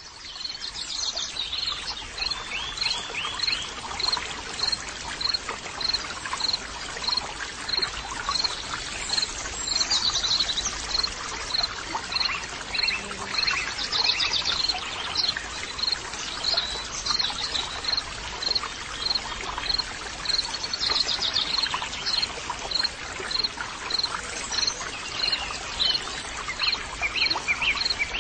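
Rainforest ambience: a dense, steady chorus of insects with one high note repeating evenly about three times every two seconds, and bird calls chirping over it.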